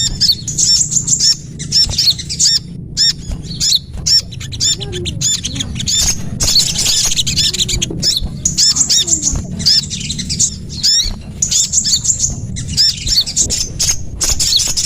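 Bird-lure (pikat) recording of small songbirds calling: a dense, fast run of short, high chirps and chattering notes with brief gaps, over a steady low hum.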